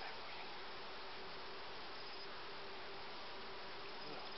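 Steady hum of a Carpathian honeybee colony buzzing in an open hive.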